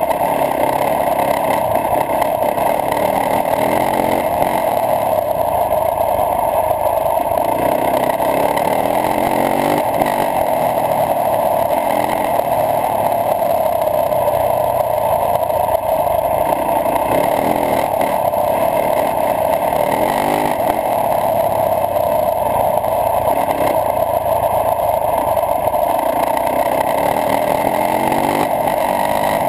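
Yamaha YZ450F four-stroke single-cylinder dirt bike engine running at riding speed, its note rising and falling every few seconds with throttle and gear changes, under a steady rush of wind noise.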